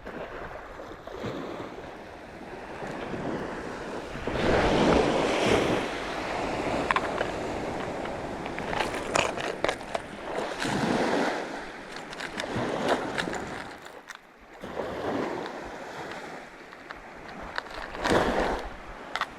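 Sea waves washing in on the shore, surging every few seconds, with a few sharp clicks among them.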